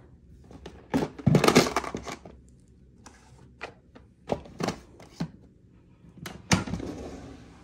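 Plastic storage containers and a cardboard box of number cards being shifted and set into a wooden drawer: a string of knocks and clatters, loudest about a second and a half in and again near the end.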